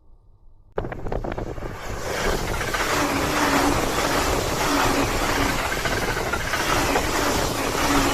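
E259 series Narita Express electric train running past close by: a loud, steady rumble of wheels on rails that starts suddenly about a second in, with a low hum that comes and goes.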